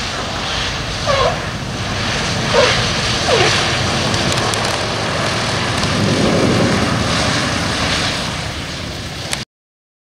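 B-17G Flying Fortress's four Wright R-1820 Cyclone radial engines running at low power as the bomber rolls out after landing, with three short squeaks from the wheels in the first few seconds. The sound cuts off suddenly near the end.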